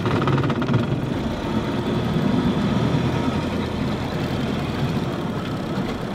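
Small boat's motor running steadily while the boat manoeuvres around a snag to free a hooked fish's line.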